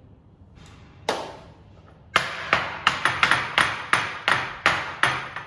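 One sharp knock, then a run of about ten sharp strikes on a hard surface, about three a second, each with a short ringing tail.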